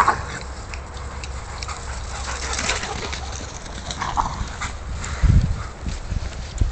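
Dogs playing rough, with a short sharp yelp right at the start and another short cry about four seconds in, over a low steady rumble. A few low thumps come about five seconds in.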